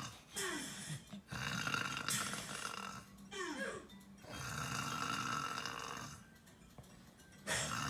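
A man snoring loudly in his sleep: a run of rasping snores, one every second or two with short gaps. There is a quiet stretch of about a second near the end before the next snore starts.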